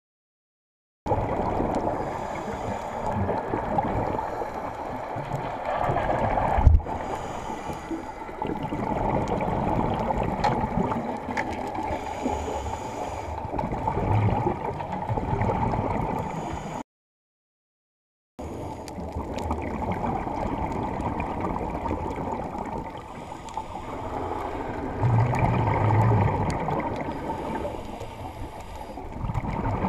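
Muffled underwater noise heard through a GoPro's waterproof housing, with scuba regulator exhaust bubbles gurgling and swelling every few seconds as the diver breathes out. A single sharp knock comes about a third of the way in, and the sound drops out briefly midway.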